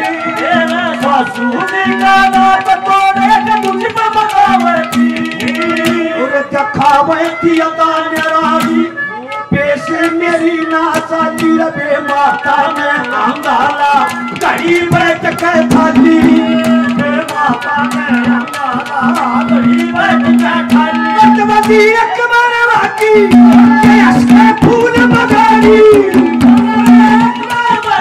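Live Haryanvi ragni music: fast hand-drum strokes under a held melodic accompaniment, with a man singing into the microphone at times.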